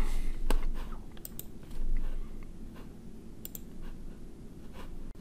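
Scattered computer keyboard and mouse clicks: a handful of sharp taps spread unevenly through the few seconds, over a low steady hum.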